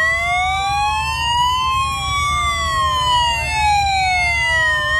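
Two motorcade sirens sounding together in a slow wail, each rising and falling over a few seconds and out of step with the other, over a steady low vehicle rumble.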